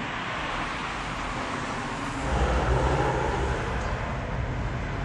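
Road traffic going by, with a louder low rumble from about two seconds in.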